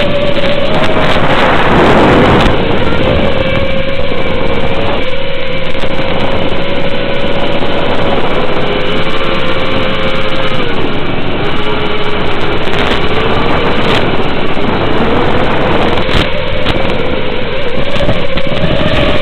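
An FPV aircraft's electric motor whines steadily through heavy noise, as heard over the video link's onboard audio. Its pitch drops about ten seconds in and climbs again near the end.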